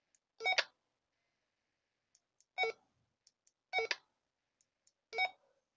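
Baofeng UV-5R handheld radio's keypad beeping as its buttons are pressed: four short beeps, irregularly spaced one to two seconds apart.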